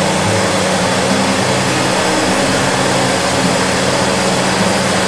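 Steady rushing noise of a high-pressure gas wok burner and hot oil bubbling in a large wok of frying keria, with a faint low hum underneath.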